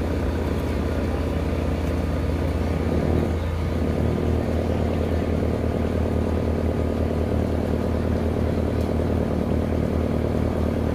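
An off-road truck's engine running steadily under load, picking up a little about four seconds in.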